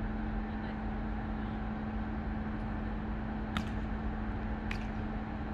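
Two sharp slaps of a volleyball being struck, about a second apart, a little past the middle, over a steady background hum.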